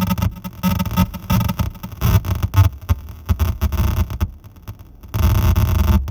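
Glitchy electronic noise from an Error Instruments Data Synth as its knobs are turned: a heavy low rumble and harsh hiss that stutter in rapid, uneven bursts. It thins out and drops a little past the middle, then comes back loud about a second before the end.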